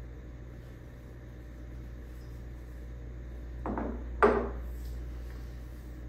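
Glass tasting glasses set down on a wooden table: a softer knock, then a sharper, louder clink about four seconds in, over a low steady room hum.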